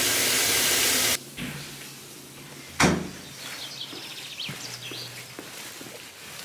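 Tap water running hard into a plastic bucket of soapy water, cutting off about a second in. A single loud thump follows near the middle, then quiet outdoor background with faint bird chirps.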